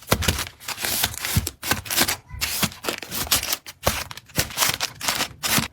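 Quick, irregular taps, clicks and rustles of packaging and containers being handled and set down, several a second.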